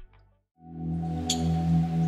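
Background music: one piece stops, there is a short gap, and a new ambient piece begins with held low tones and a single high chime.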